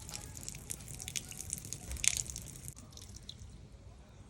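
Water dripping and splashing out of an opened outside tap as the last water drains from the shut-off pipe, in irregular drips that thin out after about three seconds.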